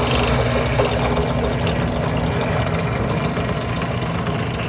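Small Harbor Freight benchtop drill press running steadily, a low motor hum with a fine rattling texture, its 1/8-inch glass bit just through two layers of stained glass in a pan of water.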